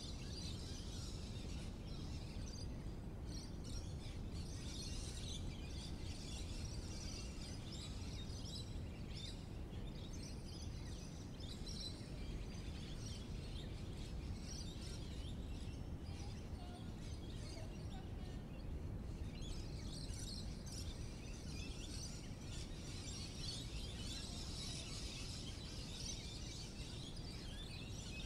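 Many birds chirping and calling, a busy mix of high twittering, over a steady low background rumble.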